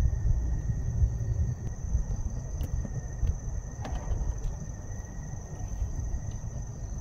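Night insects chirring in two steady high tones over a constant low rumble. A light clink of cutlery on a plate comes about four seconds in.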